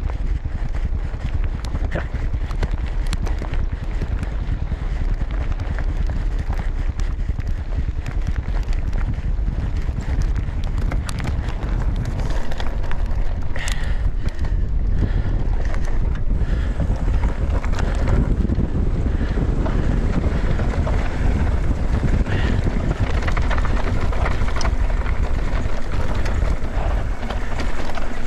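Wind buffeting the microphone of a camera on a moving mountain bike, over the rolling of the tyres on a dry dirt and grass trail and the clicks and clatter of the bike over bumps. It gets louder about twelve seconds in.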